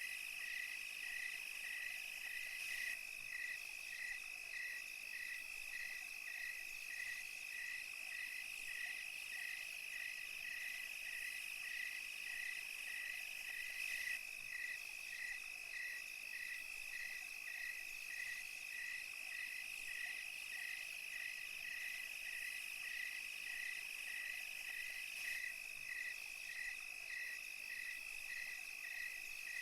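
Night insect chorus of crickets and cicadas: a steady high trill, with a regular chirp repeating about twice a second.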